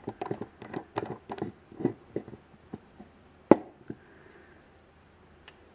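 Light clicks and taps of a nail polish bottle and its cap being handled on a hard surface, with one sharper, louder click about three and a half seconds in.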